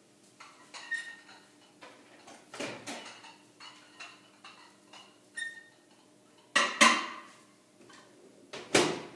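Clinks and knocks of a plate with an upturned glass on it being handled and set into a microwave, a scattering of small taps with two louder knocks, one about seven seconds in and one near the end.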